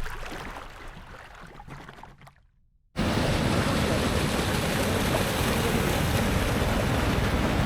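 The tail of a swooshing intro sound effect fades out, then after a brief silence a steady rushing noise of sea surf and wind begins about three seconds in and runs on evenly.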